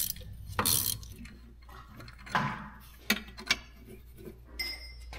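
Ratcheting wrench clicking and clinking on the upper mounting nut of a Toyota pickup's front shock absorber as the nut is worked loose, with a few separate sharp metallic clicks and knocks spread through it.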